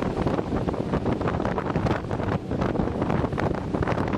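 Wind buffeting the microphone on a rigid inflatable boat moving over calm water: a steady, dense rumbling noise with constant flutter.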